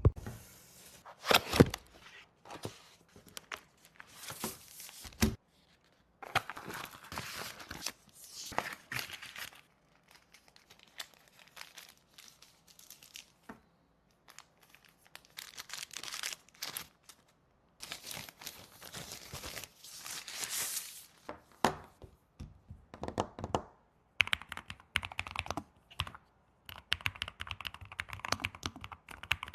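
Irregular rustling and crinkling handling noise in stretches of a second or more, with scattered short clicks; the clicks come thicker in the last few seconds.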